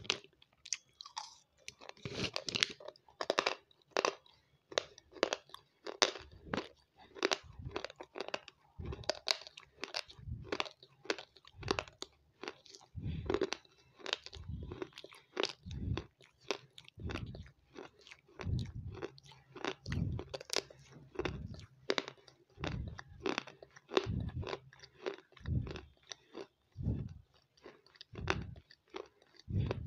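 Close-miked crunching and chewing of small white crumbly chunks in the mouth: sharp crackling crunches over a rhythmic chewing thump about once a second.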